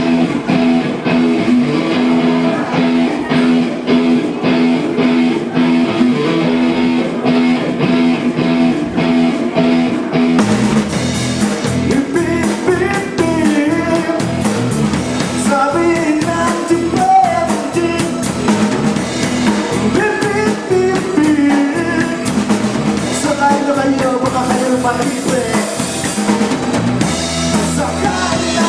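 Live band music: a guitar strums a steady intro, then a drum kit comes in about ten seconds in and the full band plays on, with a melody line over it.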